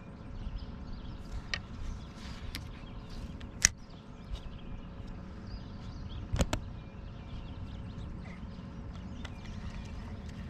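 Low steady rumble aboard a fishing kayak under way, with a few scattered sharp clicks and knocks of gear against the hull. The loudest is about three and a half seconds in, and a quick double knock comes about six and a half seconds in.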